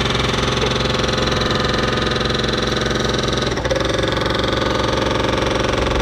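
Construction machine's engine running steadily at a constant speed, with a fine rapid pulse.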